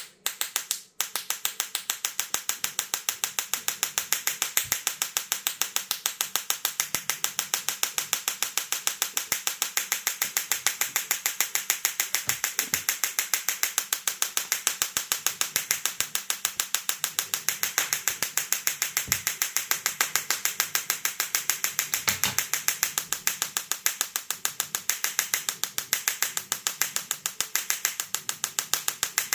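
Small Tesla coil plasma speaker arcing from its discharge needle in pulse mode: a fast, even train of sharp electric cracks, several a second. It cuts out briefly a couple of times in the first second, then runs steadily.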